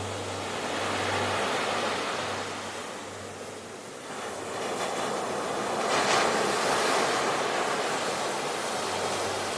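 Sea surf washing ashore: the wash swells, ebbs away, then a wave breaks about six seconds in.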